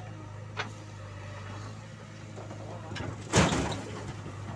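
JCB 3DX backhoe loader's diesel engine running steadily under load as the backhoe arm swings a bucket of soil, with a sudden loud noisy burst a little over three seconds in.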